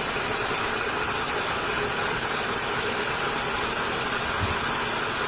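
Steady, even rushing noise of a fan or blower running at the electronics repair bench.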